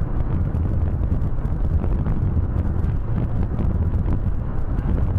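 Steady low rumble of a car driving, road and engine noise with wind buffeting the microphone.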